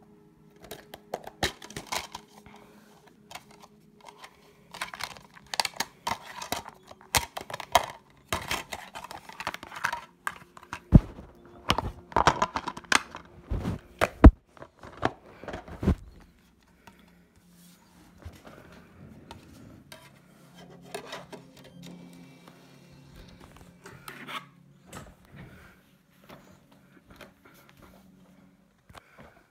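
Plastic DVD case being handled and opened: rustling, crinkling and a run of clicks, with several sharp snaps about eleven to fourteen seconds in, then quieter scattered handling noise over a steady low hum.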